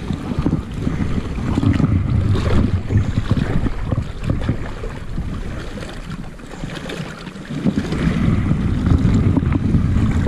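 Strong gusty wind buffeting the microphone, a loud low rumble that eases off for a moment about two-thirds through and then picks up again.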